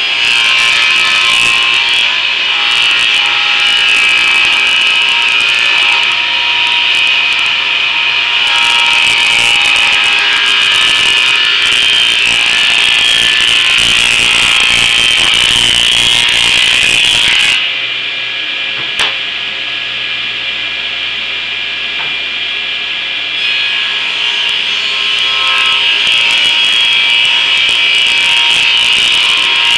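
Table saw with a 28-tooth combination blade ripping a thin strip off a pine 2x3 stud: a steady high whine with the rasp of the blade cutting wood. A little past halfway the cutting sound drops for about six seconds, with one sharp click, then the blade cuts into the wood again.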